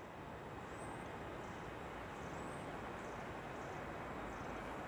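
Steady, distant vehicle rumble that swells slightly, with faint high chirps repeating about every two-thirds of a second.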